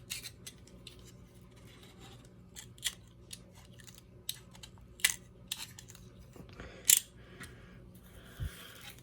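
Utility knife cutting away hair wound around a vacuum brush roll: irregular sharp clicks and snips, the loudest about seven seconds in, with a scraping rustle near the end.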